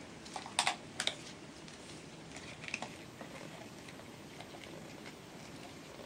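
Light clicks and handling noise of safety glasses and a dust respirator being fitted on: three sharp clicks in the first second, then softer scattered ticks.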